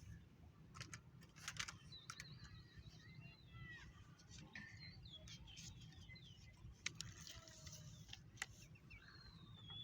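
Faint bird chirps: many short rising and falling calls, with scattered clicks over a low background rumble.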